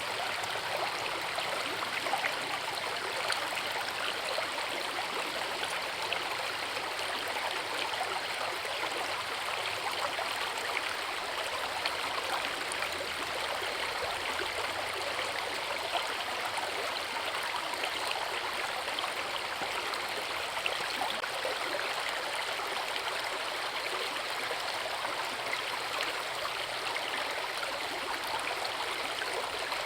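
Forest river rushing steadily over rocks, a continuous even splashing flow of water.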